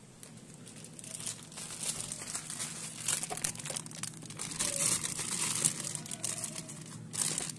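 Plastic crinkling and rustling with many small crackles, getting louder about two seconds in, as bagged items are handled in an open freezer, over a low steady hum.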